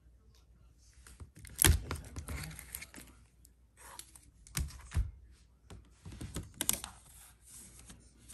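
A dry erase board and sheets of paper being handled and shifted on a table: paper rustling with several light knocks, the loudest about a second and a half in.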